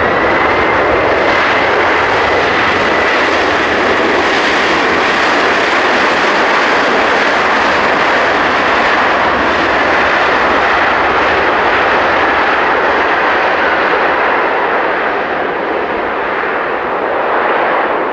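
Boeing 767-300 turbofan engines roaring loudly and steadily on the landing rollout, with a high fan whine that climbs right at the start and then slowly sinks. This is the sound of reverse thrust spooling up to slow the jet after touchdown.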